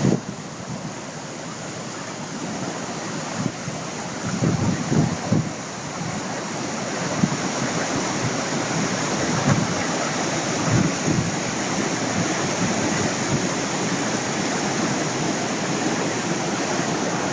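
A small stream in flood rushing and churning in a continuous steady roar of turbulent water, swollen nearly to the top of its walled channel. A few low buffets of wind on the microphone come through about a quarter of the way in and again past the middle.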